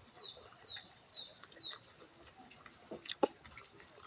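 A bird calling in the background: a run of about five short notes, each falling in pitch, over the first two seconds. A few sharp clicks follow about three seconds in.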